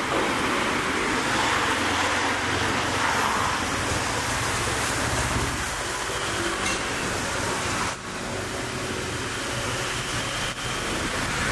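Steady street traffic noise from a roadside, with a few short knocks about eight seconds in.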